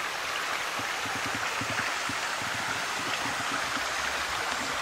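Shallow rocky stream running with a steady rush of water, with many small irregular low knocks through it.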